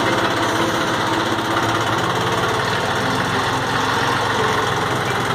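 Old Ford diesel farm tractor engine running steadily at low speed.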